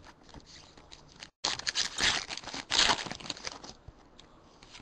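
Foil trading-card pack wrapper crinkling and cards rustling as they are handled, loudest in the middle, with a brief break about a second and a half in.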